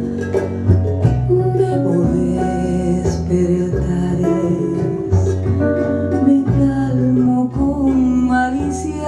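Music: a song with guitar and singing over a steady bass line.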